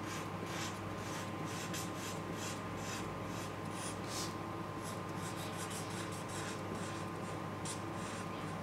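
Felt-tip marker rubbing on paper in quick short strokes while colouring in, a soft scratching several times a second, over a faint steady hum.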